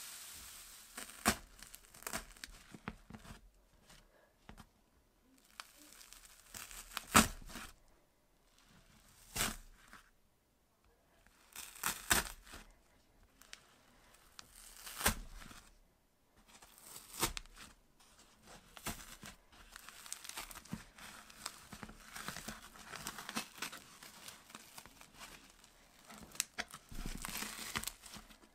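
Crunchy avalanche slime being squished, popped and torn apart by hand: crackling and tearing, with a few sharp snaps every two to three seconds at first, then a steadier run of crinkling crackle through the second half.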